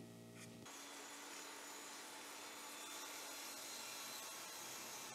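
Evolution Rage 5S table saw running, its blade cutting through a small plywood piece pushed past it on a sled. The steady saw noise starts abruptly under a second in.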